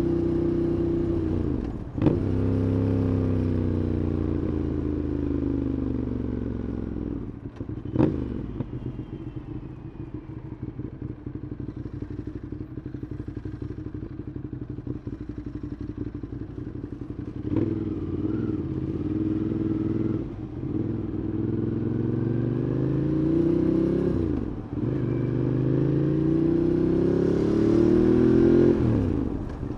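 Ducati Monster 821's L-twin engine accelerating through the gears, the revs climbing and then dropping sharply at each of several gear changes. For several seconds in the middle the engine falls back to a low, uneven beat off the throttle before pulling away again.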